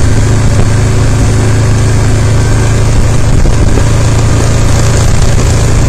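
ATV engine running with a steady, loud low hum, picked up by a camera mounted on the bike.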